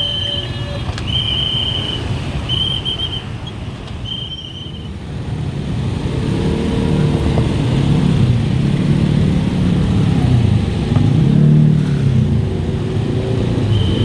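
Railway level-crossing warning signal sounding four high, even beeps about a second and a quarter apart, stopping about five seconds in. Road-vehicle engines, motorcycles and cars, then run and rev, louder, for the rest of the time.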